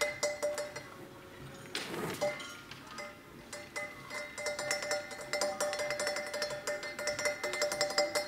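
Fast metallic percussion pattern: a pitched, clinking pulse of about six strikes a second. It thins out after the first second, with a short noisy swish about two seconds in, then comes back and builds toward the end.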